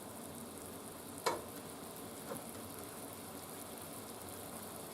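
Food frying in a skillet over low heat, a steady quiet sizzle. A sharp click about a second in and a fainter one a second later.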